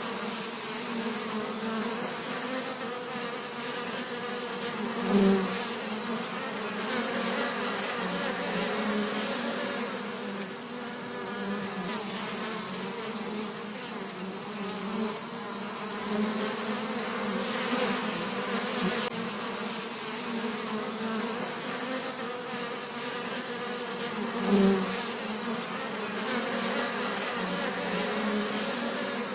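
Bees buzzing steadily with a wavering hum, with two brief louder swells, one about five seconds in and one near the end.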